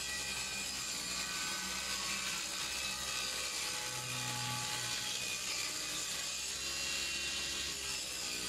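Table saw ripping a Sapele hardwood board, the blade running steadily under load as the board is fed along the fence, with a brief deeper hum about four seconds in.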